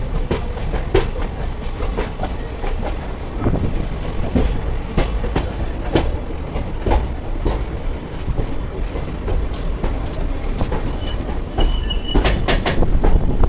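Passenger train running on the track: a steady rumble with irregular clacks of the wheels over rail joints. There is a brief high-pitched squeal from the wheels near the end.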